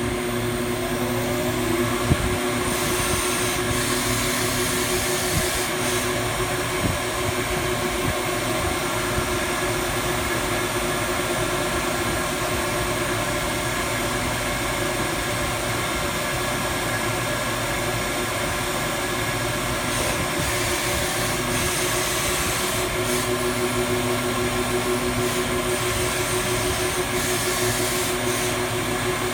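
Cylindrical grinding machine running and grinding: a steady mechanical hiss with steady hum tones underneath, and a single sharp click about two seconds in.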